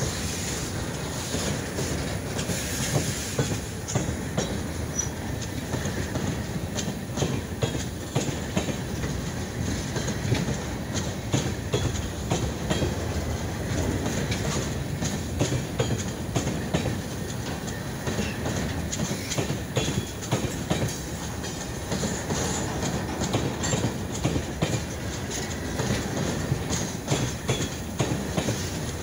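Freight train cars rolling past at steady speed, their wheels clacking over the rail joints in a continuous run of sharp clicks over a steady rumble.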